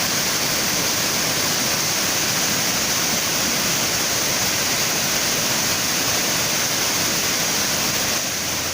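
Waterfall rushing steadily: a continuous, even sound of falling water with no breaks.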